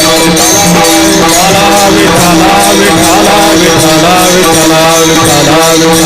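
Kirtan music: voices singing a wavering devotional line over a held drone note, with steady, evenly repeating jingling percussion.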